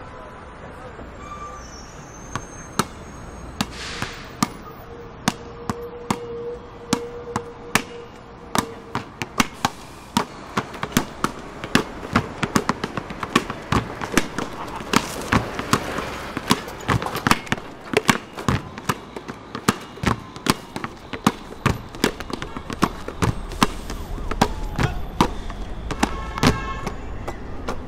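Basketballs bouncing on an outdoor asphalt court, dribbled by a group to make a rhythm. The bounces start as a few single strikes and build into a dense, quickening pattern, over a steady hum of street traffic.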